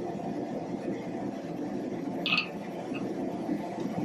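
Steady rushing roar of a small Atlas propane forge burner running, with one short, sharp higher-pitched sound about two seconds in.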